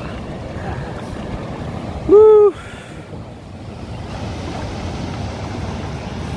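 Steady rush of wind and river water on the microphone aboard a boat. About two seconds in comes one short, loud voiced cry that rises and falls.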